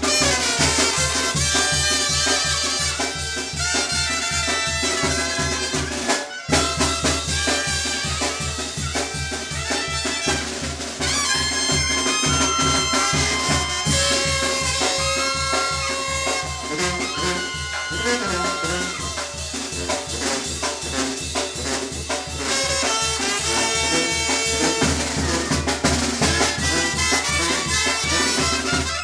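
A live Mexican brass band playing dance music: trumpets and other brass horns over a sousaphone bass line, with snare drum and cymbal keeping a steady beat. The band breaks off for a split second about six seconds in, then plays on.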